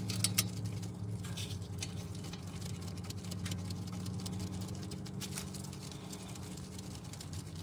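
Light scattered clicks and taps of gloved hands threading a lubricated bolt into a brake caliper by hand, a few sharper ones near the start, over a steady low hum.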